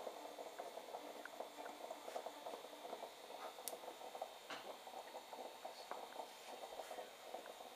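An aluminium stovetop moka pot on a gas burner, gurgling and sputtering faintly in a quick, irregular crackle as the coffee comes up through it.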